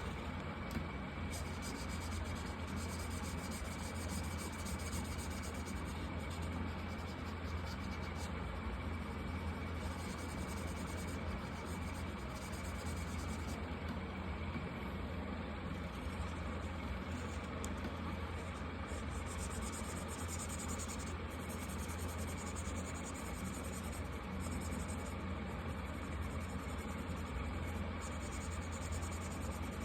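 Felt-tip markers rubbing across paper in continuous strokes, over a steady low hum.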